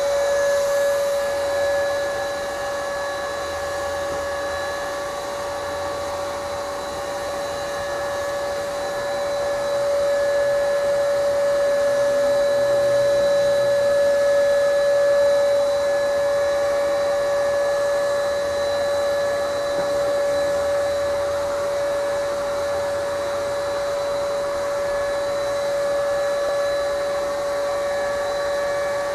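Electric paint sprayer's motor running steadily with a constant whine over an airy hiss while paint is sprayed.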